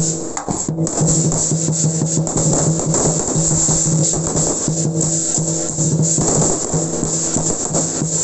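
Aerial fireworks crackling densely and continuously, a steady hissing rattle of many small pops, with music playing underneath as a repeating pitched figure.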